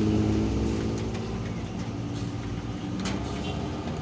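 Motor vehicle engine running, loud at first and easing to a lower steady hum after about a second.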